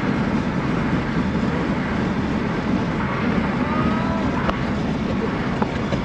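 Steady road and engine noise heard from inside a car cabin at highway speed: a continuous low rumble of tyres and engine.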